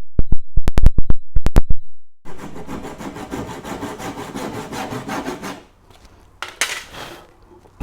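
A quick run of about nine loud knocks on a wooden stair tread as it is tapped into place, then about three seconds of rasping wood rubbing on wood as the tread is eased tight, and one short scrape near the end.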